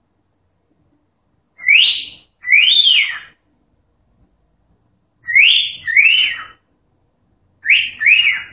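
Cockatiel whistling: three pairs of short notes, each note sweeping up and then down, with a pause of about two seconds between the pairs.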